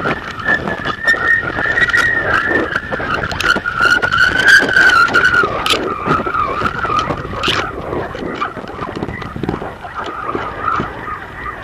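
Wind buffeting the microphone of an action camera strapped to a flying kite, with a high whistle wavering up and down through it and irregular ticks and knocks as the camera shakes on its mount.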